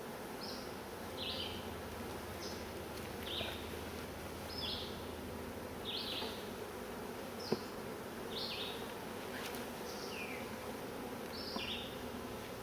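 Honey bees buzzing steadily around an open hive. A short high chirp repeats about once a second over the buzz, and there is one sharp click a little past halfway.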